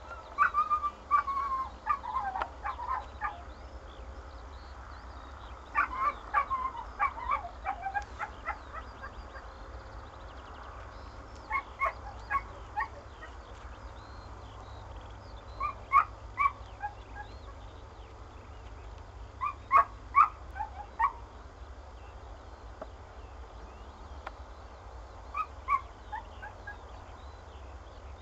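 A dog's high-pitched yelps while chasing, in irregular bursts of several quick yips with pauses of a few seconds between them.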